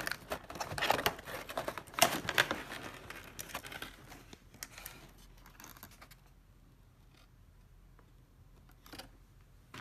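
Cardboard packaging inserts in a laptop box being shifted and lifted out: a quick run of scraping, crinkling cardboard for about four seconds, then faint handling and a single click near the end.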